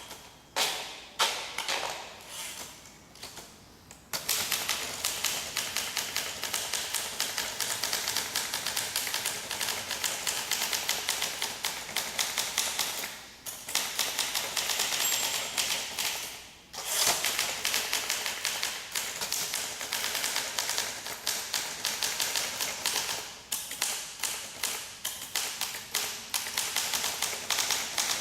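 1958 Olympia SM2 manual portable typewriter being typed on: a few separate keystrokes, then fast continuous typing from about four seconds in, broken by two short pauses.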